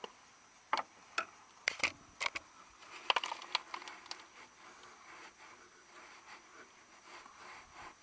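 Irregular sharp clicks and light metal taps from hand tools working at the car's front wheel, bunched in the first half, then fading to faint background.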